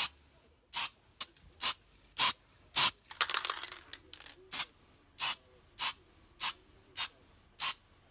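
Spray paint hissing out in short, even bursts, roughly one every half-second, with a longer, rougher stretch of hiss about three seconds in.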